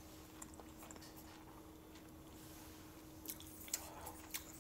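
Quiet chewing of fried chicken, with a few soft wet mouth clicks in the second half, over a faint steady hum.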